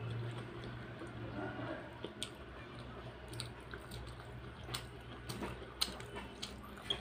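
Close-up chewing of dal-soaked rice and fried cauliflower and potato, wet and squishy, with scattered short mouth clicks. A low steady hum runs underneath.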